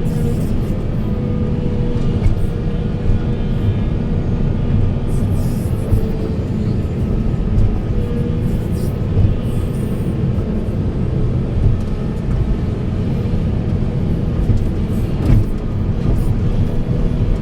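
Volvo 480 heavy excavator working: its diesel engine runs steadily under load with a steady whine over the rumble, and a sharp knock about fifteen seconds in.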